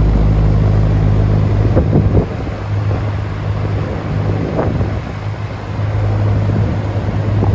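Vintage General Electric box fan running: its motor hums steadily under the rush of moving air. The low rumble drops a little about two seconds in, and there are a few faint knocks.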